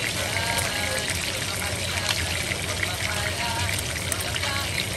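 Bone-in chicken thighs sizzling in hot oil in a frying pan: a steady crackling hiss.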